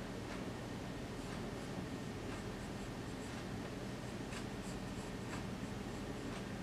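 Pencil scratching across drawing paper in short, irregular strokes as a sketch is drawn, over a steady low hum.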